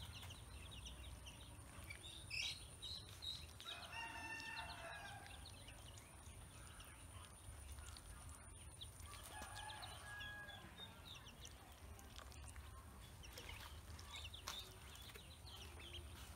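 Faint bird calls: two drawn-out calls with a clear pitch, about four seconds in and again around nine to ten seconds, among scattered short high chirps over a low steady background rumble.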